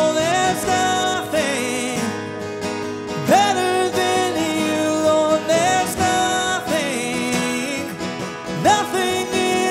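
Acoustic guitar strumming under a man singing wordless held notes with vibrato, part of a slow acoustic worship song.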